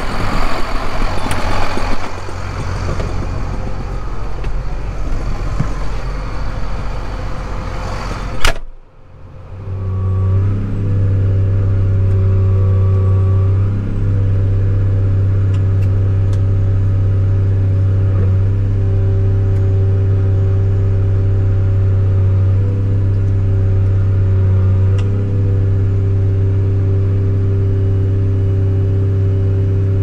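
Case IH Magnum 240 tractor's diesel engine running. For the first eight seconds or so it is heard outside beside the tractor as a rougher, noisier sound. After a sudden cut it becomes a steady, even drone from inside the cab, with the tractor working under load driving the grain cart's unloading auger.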